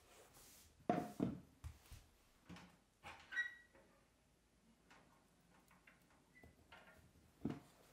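The cast-iron door of a Dovre 640CBJ wood stove being unlatched and swung open: a few faint clunks and a short metallic squeak about three and a half seconds in.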